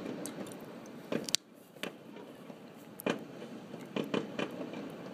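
Fireworks going off in a finale: a string of separate sharp bangs at irregular intervals, a few close together near the end.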